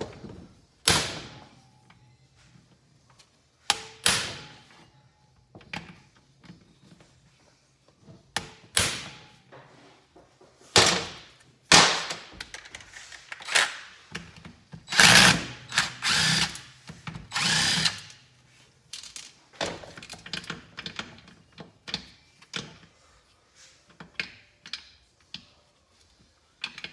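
Cordless power driver running in several short bursts, backing out fasteners, with metallic clinks and knocks of tools and small engine parts between the runs. The runs are longest and closest together about two-thirds of the way through.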